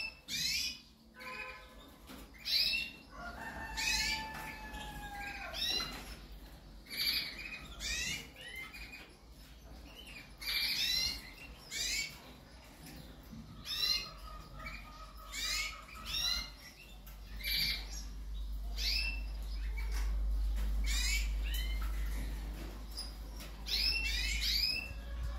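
Canaries chirping: clusters of short, high calls repeated about once a second, with a few longer held notes between them. A low rumble comes in during the second half.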